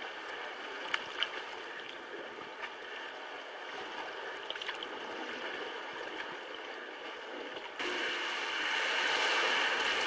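Water lapping and sloshing around sea kayaks as they paddle, with a few light clicks. About eight seconds in, the sound changes abruptly and grows louder as the kayaks enter a sea cave, the water sloshing inside it.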